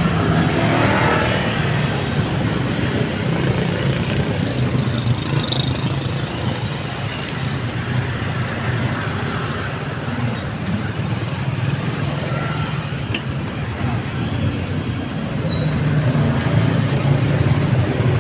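Road traffic: motorcycles and motorcycle sidecar tricycles running just ahead, a steady low engine drone that grows louder near the end.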